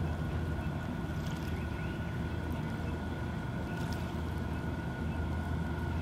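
A steady low mechanical drone with a thin steady high tone over it, and a few faint clicks.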